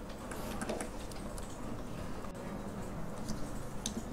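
Faint, scattered clicks of a computer mouse over a low steady hum.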